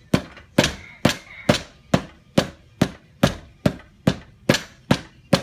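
Steady hammer blows, about two a second, knocking the rear axle assembly of a Suzuki LTZ 400 ATV out sideways through its bearing carrier. Each blow is a sharp knock with a short ring.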